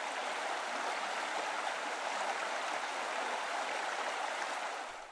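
Water cascading over a stone weir: a steady rush of falling, splashing water, fading out near the end.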